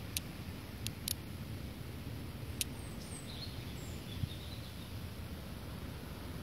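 Small birds calling: a few short, high chirps in the first three seconds, then a faint, high twitter. Under them runs a steady low rumble.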